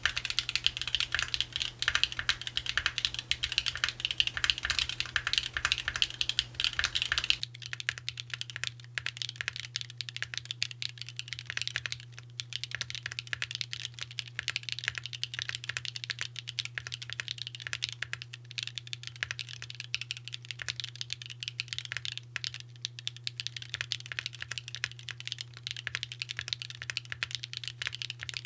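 Mode Envoy mechanical keyboard with Owlab Neon switches in an aluminium plate, no foam inside, typed on quickly and continuously in a rapid stream of key clacks. About seven seconds in the typing turns quieter and thinner, and a steady low hum runs underneath.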